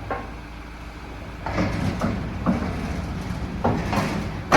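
Several irregular clunks and metallic rattles from a multi-chamber baler's steel parts being moved, the last one the loudest.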